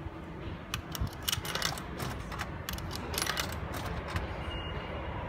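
Coins fed into a vending machine's coin slot, clinking and rattling down through the coin mechanism in several quick clusters of metallic clicks. A steady low rumble runs underneath.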